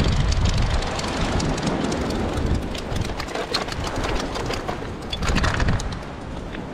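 Wind buffeting the microphone, with ocean swell surging and washing over the rock ledge below and scattered light clicks.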